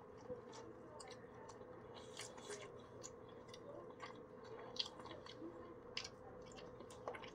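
Faint chewing of grilled chicken, with small irregular wet mouth clicks and smacks, over a low steady hum.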